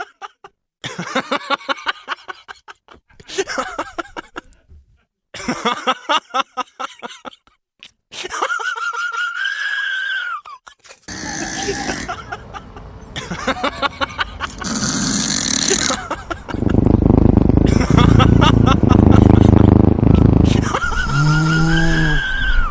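People laughing in short fits, then a steady high squeal for about two seconds, and later a loud, low noisy rumble lasting several seconds.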